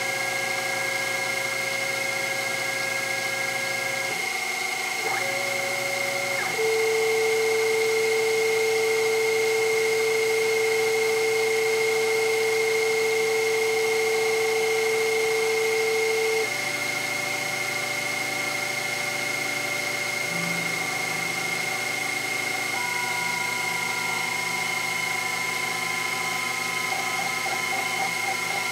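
Sherline CNC mill running simultaneous fourth-axis cuts: the spindle and end mill cut a Delrin rod while the motors whine. There is a steady high tone throughout, with lower tones that shift pitch every few seconds as the moves change, and a louder, lower tone from about six to sixteen seconds in.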